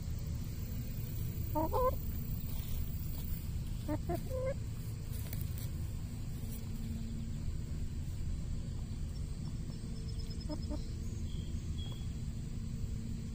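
Free-ranging chickens clucking in a few short calls, about two seconds in, around four seconds in and again past ten seconds, over a steady low rumble.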